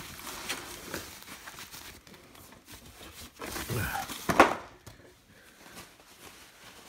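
Plastic wrap and foam packing rustling and crinkling as wrapped wooden chair parts are pulled out of a cardboard box, with a louder, sharper noise about four seconds in.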